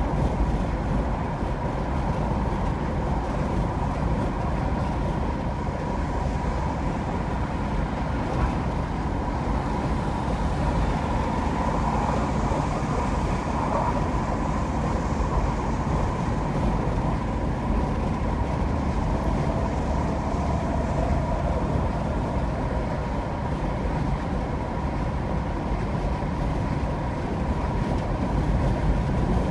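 A car driving at highway speed, with a steady rush of tyre and road noise and a faint steady whine.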